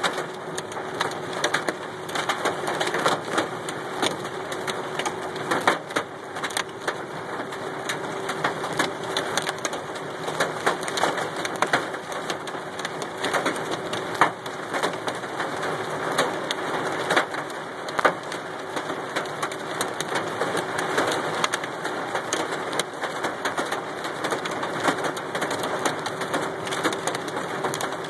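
Hailstones and heavy rain pelting a car's roof and windshield, heard from inside the cabin: a dense, irregular clatter of sharp hits over a steady hiss of rain.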